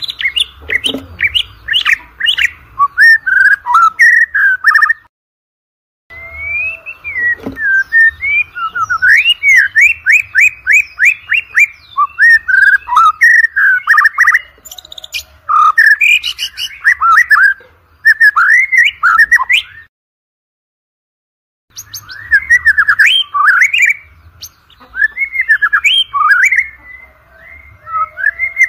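White-rumped shama (murai batu) singing a loud, varied song of rapid whistled phrases, quick up-sweeping notes and trills. The song comes in long runs broken by two short complete pauses.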